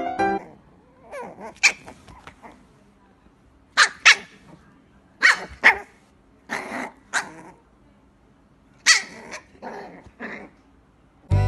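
A puppy barking in short, sharp yaps, about a dozen in small groups of one to three, some with a growl in them.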